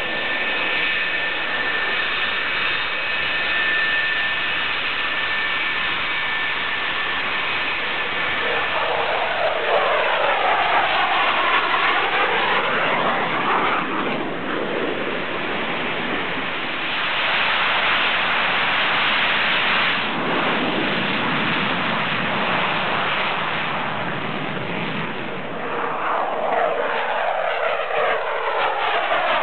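F-4 Phantom jet fighters' J79 turbojets: a steady high whine over loud jet noise for the first several seconds, then loud jet noise with a sweeping whoosh as Phantoms take off and climb past, twice.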